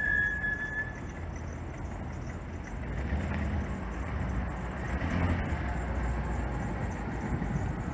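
2005 Isuzu NPR HD box truck's engine running with a steady low rumble that swells for a few seconds in the middle. A brief high squeal fades out about a second in.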